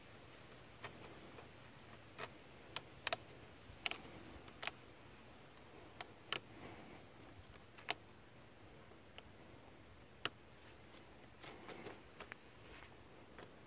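About ten sharp, irregular clicks and taps of pliers and hose clips being worked on a diesel fuel filter's hose connections, with the engine off.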